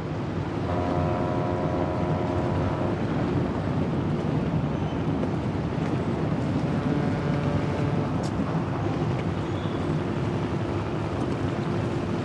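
Harbour ambience: a steady low rumble of ship engines and wind. A faint pitched tone with overtones sounds twice, near the start and about halfway through.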